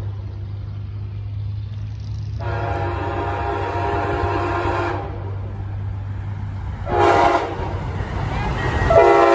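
Amtrak Siemens ALC-42 Charger locomotive's air horn sounding the grade-crossing pattern as the train approaches. There is a long blast about two and a half seconds in, a short one about seven seconds in, and another long blast starting near the end, all over a steady low rumble.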